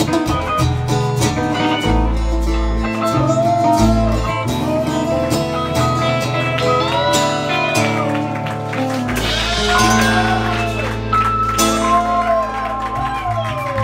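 Live band playing: guitars, bass and drums, with a lead guitar line of bending, gliding notes over sustained bass notes.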